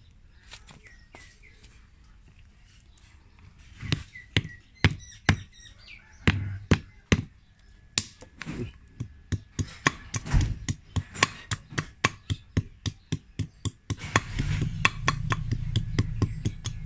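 A knife blade chopping at a thin wooden stick laid on concrete paving, giving sharp chops. The chops are sparse at first, then quicken to an even run of about four a second. Near the end a low steady rumble comes in.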